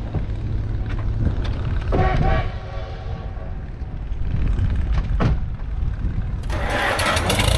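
Steady low wind rumble on the microphone across an open field, with a short toot about two seconds in. Outro music with acoustic guitar starts near the end.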